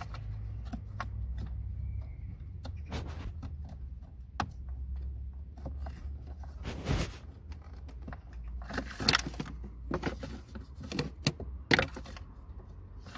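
Scattered clicks, knocks and rustles of hands handling the heater blower motor and its plug under the dashboard while refitting them, with a few louder scraping bursts over a steady low hum.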